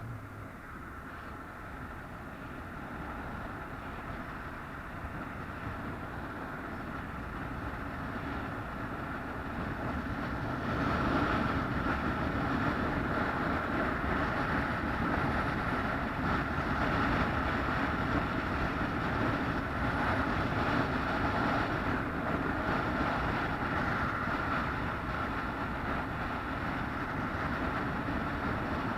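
Steady running noise of a moving vehicle, building over about the first eleven seconds and then holding level.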